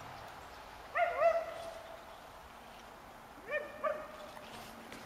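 Two short whining animal calls, one about a second in and another about two and a half seconds later. Each slides up quickly and then holds a steady pitch.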